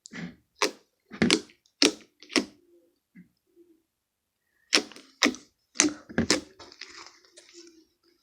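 Slime being squeezed and worked by hand, letting off a string of sharp pops and cracks as trapped air bubbles burst: five in quick succession, a pause of about two seconds, then four more and a few weaker ones.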